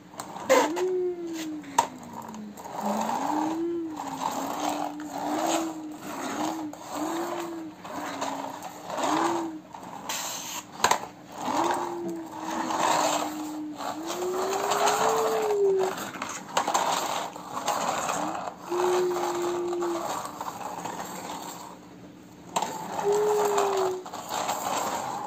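Plastic toy dump truck pushed by hand over a hard floor, its plastic body and wheels clacking and rattling with sharp clicks and scraping. Through it runs a low wavering tone that rises and falls again and again.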